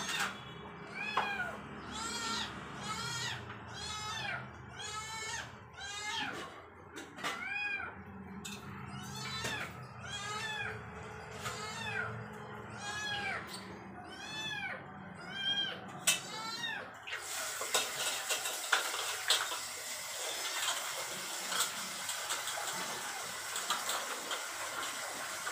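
Kitten meowing over and over, about one call a second, each call rising and then falling in pitch. Some seventeen seconds in, the meowing stops and a steady hiss takes over.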